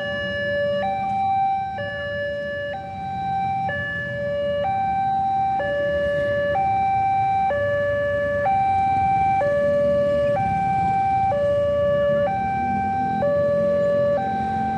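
Railway level-crossing warning alarm sounding a steady two-tone hi-lo signal, each tone lasting about a second, warning that a train is approaching. Low rumble of idling vehicles waiting at the crossing underneath.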